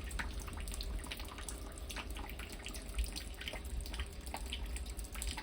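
Rainwater flowing and trickling in through a leak after a rainstorm, with many small drips and splashes scattered through it.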